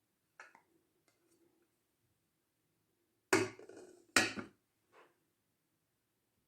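Two heavy knocks about a second apart, each with a short ringing tail: kitchen utensils or cookware striking a hard surface. A few light clicks come before and after them.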